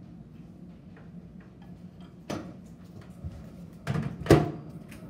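Kitchen handling noise: three sharp knocks, the loudest about four seconds in, over a steady low hum.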